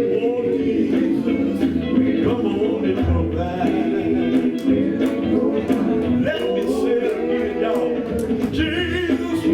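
Live gospel group performing: sung vocals over a band with a steady drum beat.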